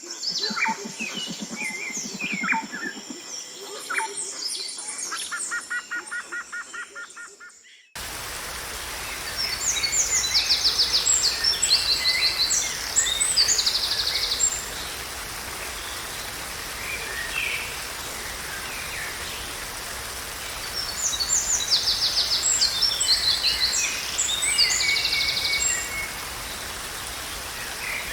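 Songbirds singing: for the first eight seconds several birds call, with a low pulsed call and a fast trill. The sound then cuts abruptly to a steady rush of falling water, over which a bird twice sings a long, high, rapidly trilling song.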